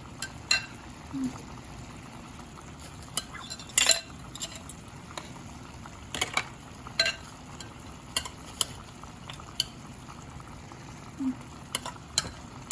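A utensil stirring food in a cooking pot, knocking and scraping against the pot at irregular moments, the loudest knock about four seconds in, over a steady low sizzle of squid and vegetables cooking.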